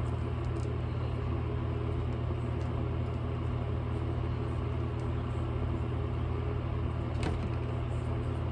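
Steady low electrical or motor hum at an even level, with one faint click about seven seconds in.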